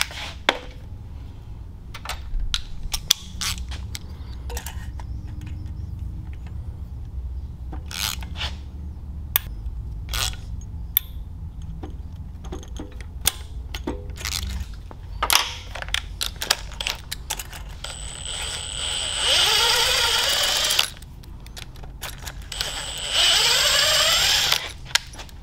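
Metal tools clicking and clinking against each other and the engine's studs, then a Makita cordless impact driver fitted with a stud-remover socket runs twice, about two seconds each, backing the carburetor studs out of a Tillotson 212 engine head.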